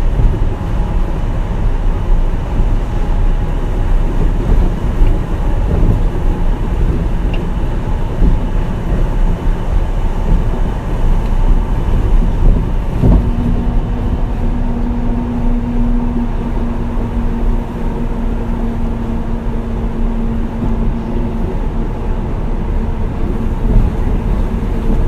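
Port Liner 2000-series rubber-tyred automated guideway train running at speed, with a steady rumble. About halfway through there is a single knock, followed by a steady tone that holds for several seconds and then fades.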